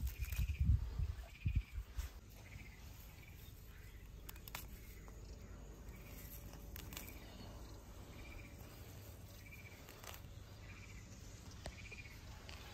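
Outdoor ambience: a short chirping animal call repeats about once a second over steady low background noise. Heavy bumps and rustling come in the first two seconds, and a few sharp clicks come midway.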